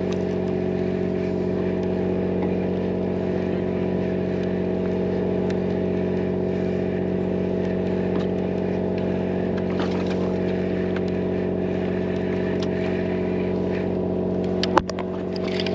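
Fishing boat's engine running steadily with an even, unchanging hum. A single sharp knock comes near the end.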